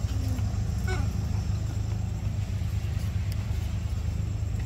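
Steady low hum of a running motor, with a faint short squeak about a second in.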